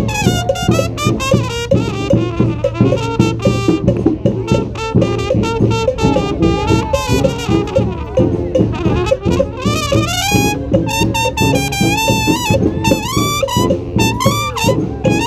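Street brass band playing a salsa tune: trumpets, saxophones and trombones carrying the melody over a steady beat.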